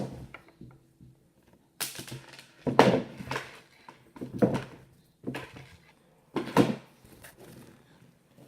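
About five short bursts of rustling and knocking from objects being handled, with quiet gaps between them.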